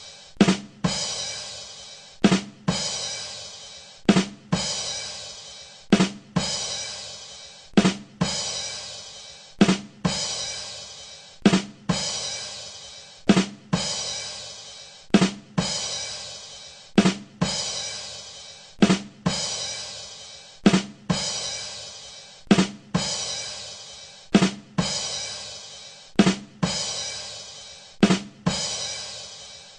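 Drum-kit rimshot sting, 'ba dum tss': two quick drum hits followed by a cymbal that rings and fades. It repeats in a steady loop about every two seconds.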